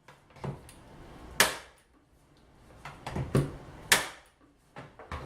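Harbor Freight 2-in-1 electric stapler nailer firing nails into a particle-board drawer front: sharp, surprisingly loud cracks, the two loudest about two and a half seconds apart, with lighter knocks in between.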